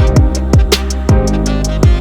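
Background music with a steady beat: deep kick drums that drop in pitch, crisp hi-hat ticks and held bass notes.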